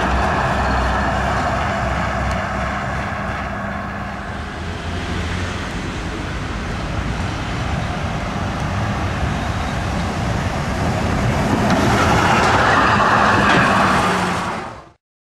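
Duewag GT8 articulated trams running on the rails. The first one passes, and after a lull a second one approaches and grows louder, going past close by about 12 seconds in, before the sound fades out quickly near the end.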